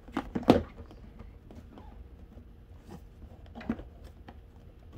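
Cardboard box being handled and its lid lifted off: a few sharp taps and rustles in the first half second, the loudest about half a second in, then another knock a little before four seconds in.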